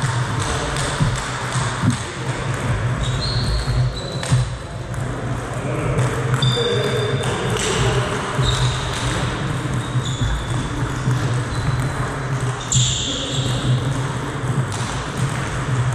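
Table tennis rally: the ball clicking off the rackets and the table in quick succession, with a few brief high squeaks of shoes on the hall floor.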